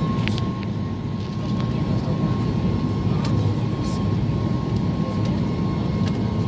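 Steady low rumble of a Boeing 737 MAX 8 airliner with its engines running, with a thin steady whine above it and a few faint ticks.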